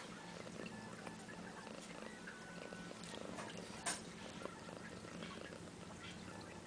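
Cat purring softly and steadily, with one sharp click about four seconds in.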